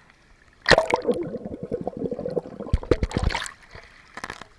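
Swimming-pool water splashing and gurgling around a camera held at the surface. It starts suddenly under a second in and dies down after about three seconds.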